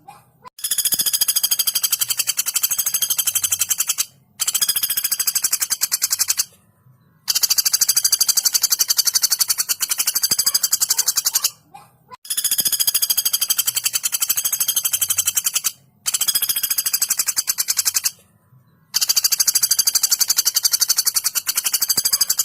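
Female pelatuk bawang woodpecker giving its long, fast, tight rattling trill. It comes in six runs of about two to four seconds each, separated by brief pauses.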